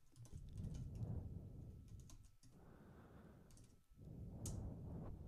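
Faint typing on a computer keyboard: a scattered run of soft key clicks as a terminal command is entered, over a low background rumble.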